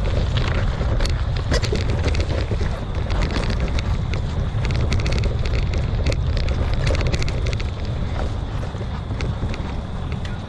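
Mountain bike riding over a rocky, leaf-covered dirt trail: wind buffets the action-camera microphone with a steady low rumble, while the tyres roll over leaves and stones and the bike rattles and clicks with many quick knocks as it jolts.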